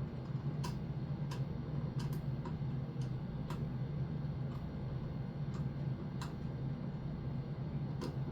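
Sharp, irregularly spaced clicks and ticks of small hardware being handled during fire alarm device wiring, about one or two a second, over a steady low hum.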